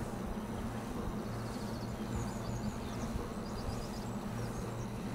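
Wind turbine running with a steady low hum, while small birds chirp faintly for a few seconds in the middle.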